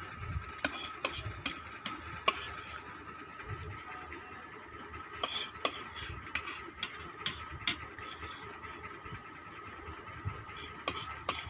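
Cutlery clinking and scraping against a bowl of noodles as they are stirred and eaten, in sharp irregular clicks, several close together about halfway through. A faint steady hum runs underneath.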